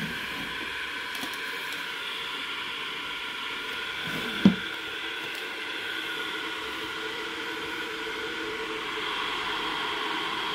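Electric kettle heating water for camomile tea, a steady hiss, with one short thump about halfway through.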